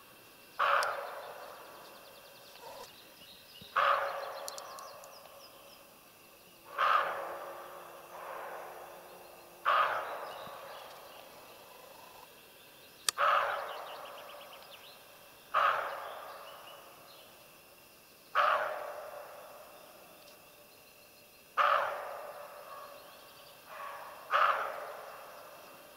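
Roe deer buck barking: nine hoarse barks, roughly one every three seconds, each sharp at the start and trailing off in an echo.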